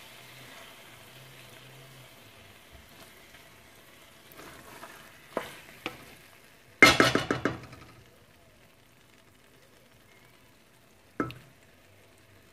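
Spoon stirring a thick spinach-and-chicken curry in an aluminium pot over a faint sizzle of the curry on the heat. A few knocks come around the middle, then a loud run of clatter of the spoon against the pot about seven seconds in, and a single knock near the end.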